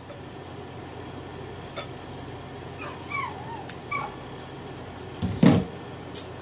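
Silicone spatula scraping thick batter from a glass bowl into a glass loaf pan, with a few short squeaky whines around three to four seconds in. A loud knock about five seconds in as the glass bowl is set down on the counter.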